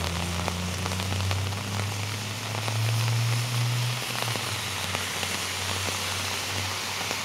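Heavy rain falling steadily: an even hiss with scattered sharp drop taps. A low steady hum runs underneath and swells briefly around the middle.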